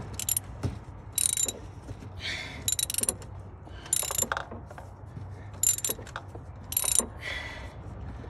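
Socket ratchet wrench clicking in short bursts, about six strokes in all, as a spark plug is turned loose.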